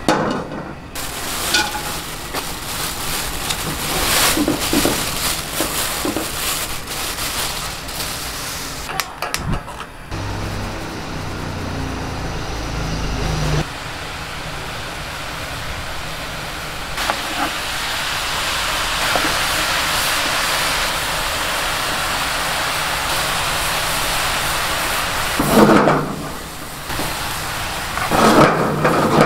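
Julienned zucchini frying in oil in a pan, a steady sizzle, with knocks and scraping from a wooden spatula stirring it.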